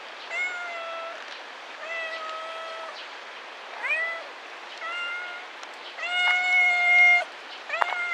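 Tabby cat meowing over and over, about six meows in all, one of them rising sharply in pitch about four seconds in; the longest and loudest meow comes about six seconds in.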